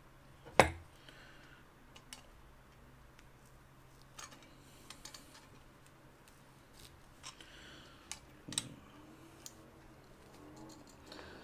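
Scattered metallic clicks and knocks of channel-lock pliers and brass pipe fittings being handled during assembly. There is a sharp knock about half a second in, another strong one about three-quarters of the way through, and lighter clicks between.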